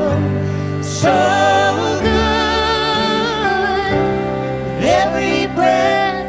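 Christian worship song: a sung voice holding and bending notes over sustained low bass and accompaniment.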